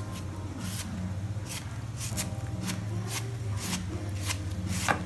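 A cleaver slicing through a raw banana flower held in the hand, a crisp cut about every half second, the last cut near the end the loudest.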